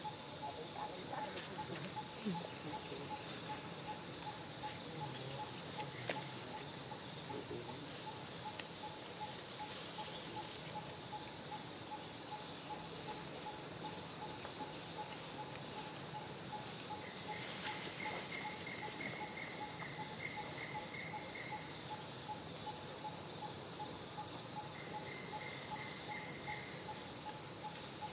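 Insects chirping steadily: a constant high-pitched drone over a lower chirp repeating a few times a second. A separate short trill joins in twice in the second half.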